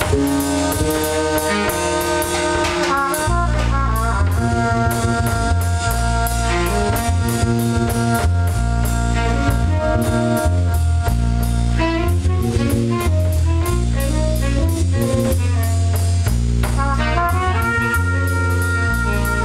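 Free improvised jazz played live by a small band: saxophone and trumpet hold and trade long notes over an electric bass guitar and a drum kit with cymbals. The bass gets heavier about three seconds in.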